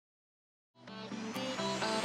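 Electronic music fading in from silence a little under a second in, building steadily louder, with stacked chords and a faint high rising sweep.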